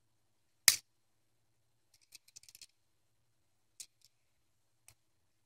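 Hiatt 101 Derby snap-shut handcuff being snapped closed: one loud, sharp click less than a second in, followed by a few faint clicks as the cuffs are handled.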